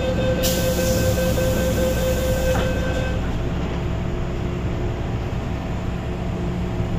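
MTR M-train doors closing: a steady warning tone sounds over a hiss, and the doors shut with a knock about two and a half seconds in. After that a steady hum of the train's equipment is left.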